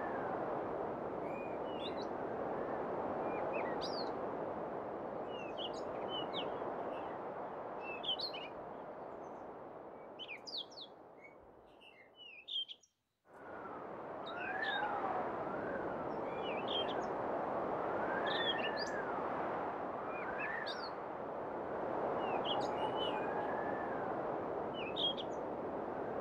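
Wind blowing steadily into the microphone while small birds chirp in short, scattered notes. About halfway through, the sound fades down and cuts out for a moment before coming back. Several rising-and-falling whistling tones follow in the second half.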